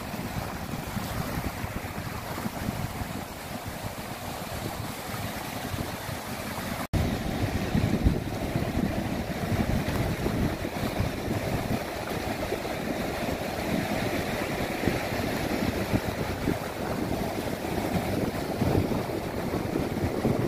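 Low surf breaking and washing up a sandy beach, with wind buffeting the microphone. The sound drops out for an instant about seven seconds in and comes back louder.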